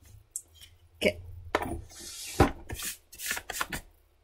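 A graphite pencil being sharpened: a run of irregular scraping strokes of blade or abrasive on wood and graphite, starting about a second in and stopping shortly before the end.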